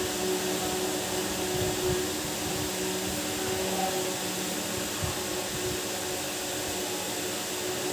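A steady mechanical whir with a low hum, level and unbroken.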